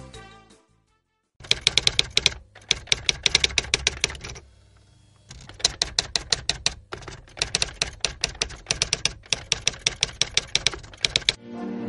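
Typewriter sound effect: rapid clacking of keys in two runs, broken by a pause of about a second, just after a music cue fades out.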